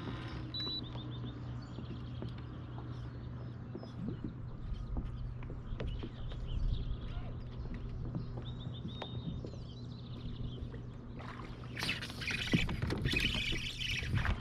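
Small birds chirping in short, high, quickly repeated trills over a steady low hum. Near the end a louder burst of rushing noise covers them.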